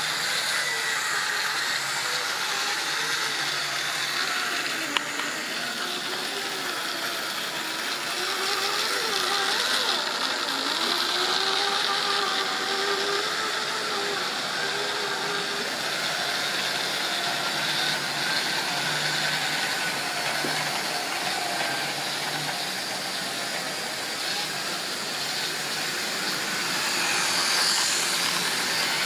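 Model railway trains running on the track: a steady rumble of wheels on rail with a motor whine that wavers up and down in pitch.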